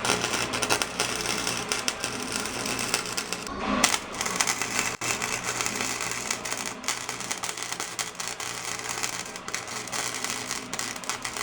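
Flux-core wire-feed welder arc crackling and sizzling steadily as a bead is laid, with a short break in the arc about three and a half seconds in.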